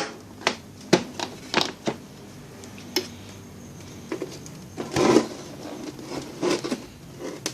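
Light clicks and taps of handling at a repair bench, with a short scraping rustle about five seconds in: meter probes and tools being set against the welding machine's circuit board while voltage is traced through a resistor.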